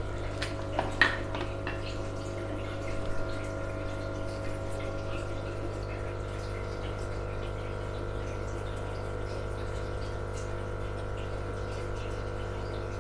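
Aquarium water pump running with a steady hum over water trickling, with a few light clicks in the first three seconds.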